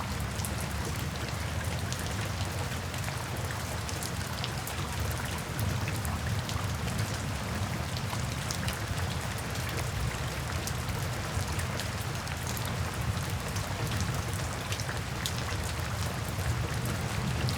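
Steady heavy rain falling, with the patter of individual drops striking a surface and a low, steady rumble underneath.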